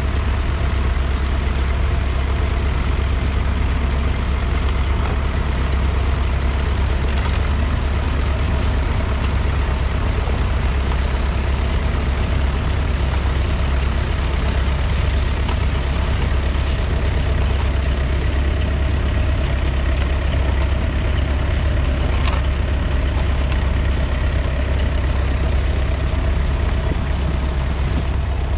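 1969 McCormick 434's 2.5-litre four-cylinder diesel engine running steadily under load, pulling a two-furrow mounted plough through the soil.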